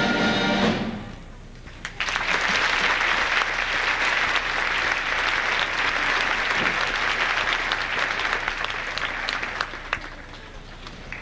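A school concert band's held closing chord cuts off just under a second in. After a short pause, the audience applauds, and the applause tapers off near the end.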